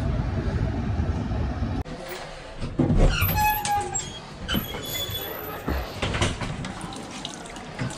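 Indian Railways passenger coach running on the track, heard from an open door as a steady low rumble with wind, which cuts off about two seconds in. Quieter handling knocks follow, with a thump about three seconds in and a brief high squeak.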